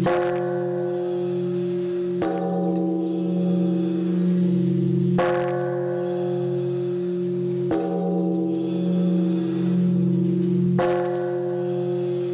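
A large temple bell struck five times with a hanging wooden beam, one stroke every two to three seconds. Each stroke sets off a low, long ring that hums on into the next.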